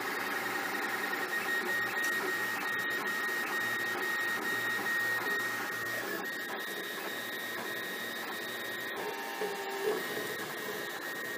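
An FDM 3D printer running upside down, printing onto an overhead bed. Its stepper motors whir in shifting tones as the print head moves, over a steady whine, with a brief louder blip near the end.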